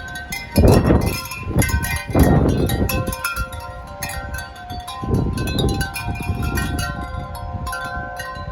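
Wind chimes ringing, many overlapping tones clanging together in strong wind. Three loud gusts of wind buffet the microphone with a low rumble, about half a second, two seconds and five seconds in.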